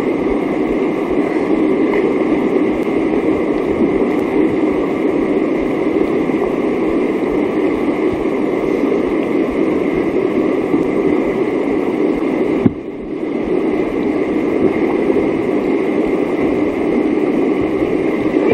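Whitewater rapids rushing steadily over boulders, loud and close to the water. A short click and a brief dip in the sound come about two-thirds of the way through.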